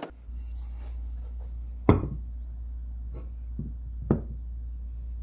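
Two sharp knocks about two seconds apart, with a few fainter taps between them, as a steel hatchet head and wooden handle blanks are handled on a workbench. A steady low hum runs underneath.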